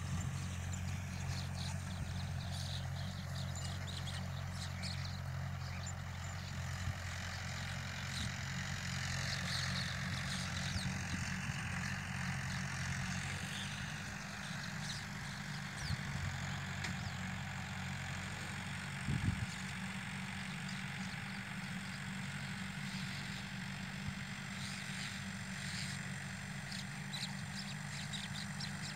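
Tractor engine running steadily while pulling a harrow, a constant low hum, with faint high ticks scattered over it.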